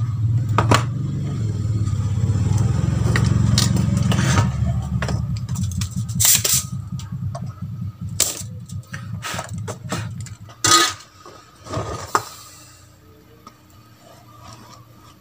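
Scattered clicks, taps and scrapes of tools and a car amplifier's circuit board being handled on a wooden workbench during soldering, the sharpest knock about two-thirds of the way in. Under them a steady low rumble fades out shortly after.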